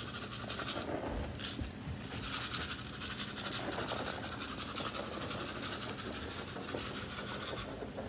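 Faint rustling and scratching with a few light knocks, over a low steady hum.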